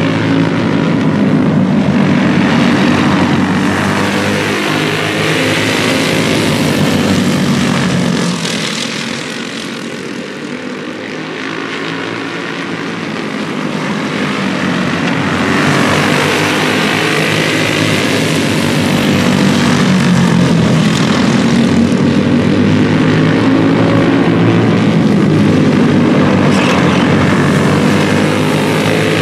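A pack of oval racing go-karts running together, their small engines making a continuous layered drone with slight rises and falls in pitch. The sound fades about a third of the way in as the pack moves away, then swells again as they come back past.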